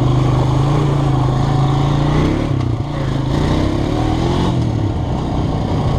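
Engine of a small off-road vehicle running steadily under way. It dips briefly around the middle, then revs up, rising in pitch, about three and a half to four and a half seconds in.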